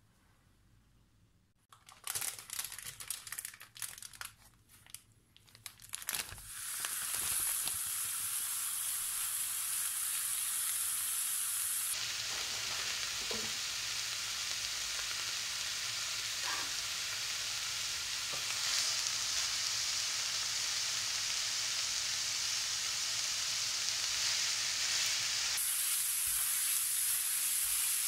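A few scattered knocks and rustles, then from about six seconds in raw minced meat sizzling steadily in a hot frying pan.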